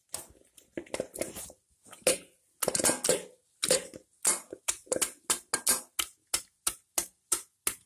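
Wooden mathu (masher) pounding peeled boiled tomatoes in a pot: short knocks and squelches, irregular at first, then settling into about three strokes a second. The tomatoes are being crushed into a pulp.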